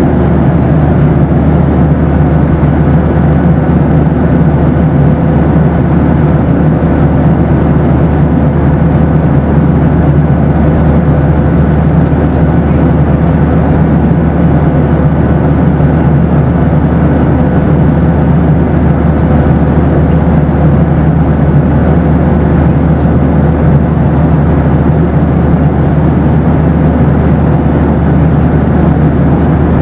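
Boeing 737 cabin noise from inside the passenger cabin: a steady, unchanging roar of engine and airflow, heaviest in the low range, with a faint steady whine on top.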